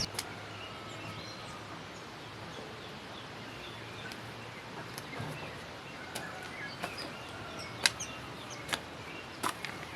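Rural background with faint bird chirps. From about halfway through come a handful of sharp, irregular knocks, the loudest near the end.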